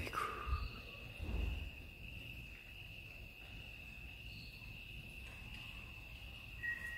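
Crickets trilling in one steady, unbroken high note, with a couple of dull low thumps in the first two seconds.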